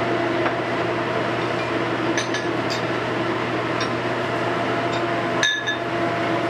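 Steady hum of a restaurant kitchen's gas range burner and ventilation, with a few light metallic clinks, the sharpest about five and a half seconds in.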